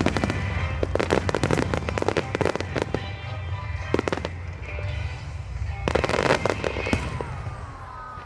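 Aerial fireworks going off in rapid volleys of bangs and crackles, with a dense crackling burst about six seconds in.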